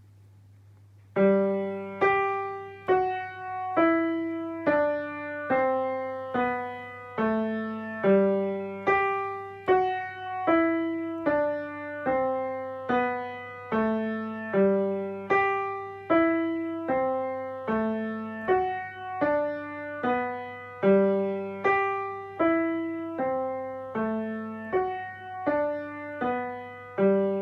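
Piano playing a slow, simple tune, one struck note at a time at an even pace of a little more than one a second, each note ringing and fading, with a lower note added on some beats. The playing starts about a second in, over a steady low hum.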